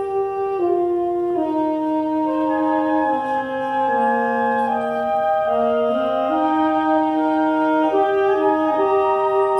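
High school concert band of brass and woodwinds playing a slow passage of held chords, the notes changing about once a second, with the low part stepping down around the middle and climbing back up.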